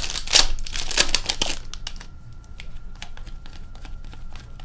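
Hockey trading cards being handled and flicked through by hand: a dense patter of card slides and clicks for about the first second and a half, then sparser single clicks as the cards are sorted.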